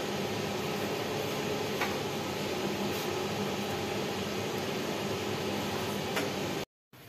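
A steady machine hum, with a few faint clicks of steel tongs on a nonstick pan as a piece of roti is lifted out. The hum cuts off suddenly just before the end.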